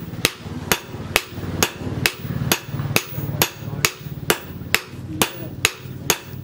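Hand hammer beating a red-hot knife blade of plough-disc steel on a steel post anvil, in a steady rhythm of about two blows a second.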